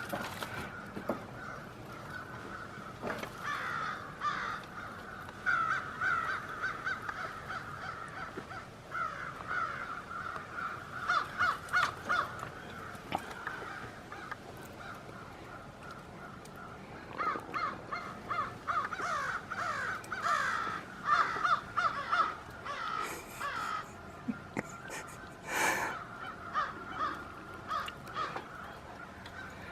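A large flock of birds calling all at once: a dense, continuous chorus of short harsh calls that swells and eases in waves, loudest in the second half.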